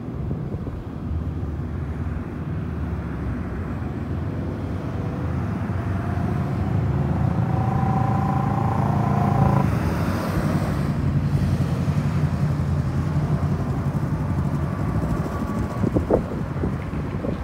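Low rumble of motor vehicle traffic nearby, swelling as a vehicle passes with an engine whine, loudest about nine or ten seconds in, then easing off. A few light clicks near the end.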